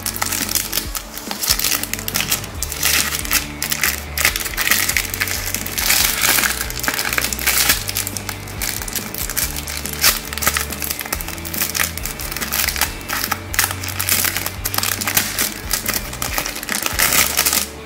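A thin clear plastic bag crinkling and crackling, irregularly and without pause, as it is handled and pulled at. Background music runs underneath.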